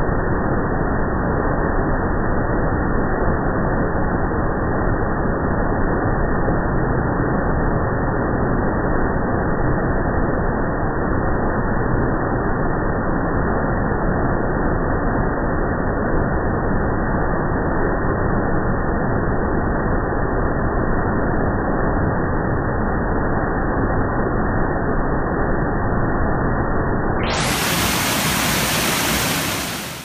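Waterfall: white water pouring down rocks, a steady rushing noise that sounds muffled, with nothing above the low and middle range. About three seconds before the end it turns bright and full, then drops away at the very end.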